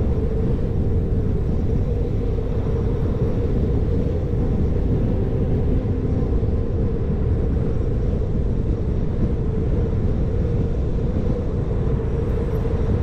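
Motorcycle riding at steady highway speed: wind rushing over the microphone on top of the engine and road rumble, even throughout with a steady hum in it.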